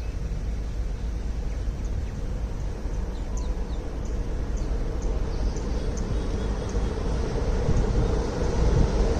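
WAP-7 electric locomotive and its double-decker coaches approaching, a steady rumble growing louder toward the end. A few faint bird chirps sound in the first half.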